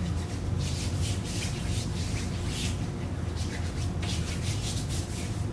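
Bare palms rubbing together in quick repeated strokes, a couple or a few a second, working lotion into the hands.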